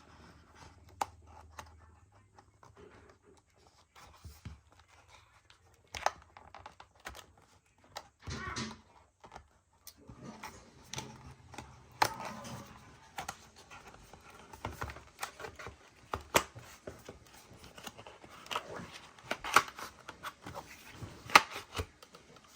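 RAM kit packaging being opened and handled by hand: scattered clicks and snaps of plastic and cardboard, with bouts of crinkling and rustling.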